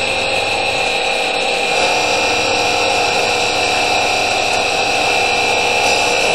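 Grinding wheel of a CNC tool and cutter grinder running steadily against a router bit, a high whine over a continuous rasping hiss.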